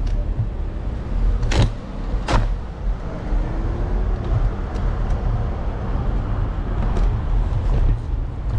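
Ride noise from a handlebar-mounted camera on an electric scooter: a steady low rumble of wind and wheels on pavement, with city traffic around. About a second and a half in come two sharp knocks close together.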